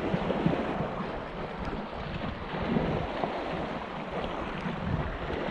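Wind buffeting the microphone over small lake waves washing and splashing against a stony shore.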